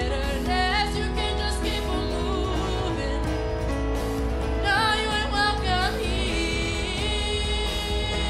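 Live worship band: a woman sings the lead melody into a microphone over electric bass and band accompaniment.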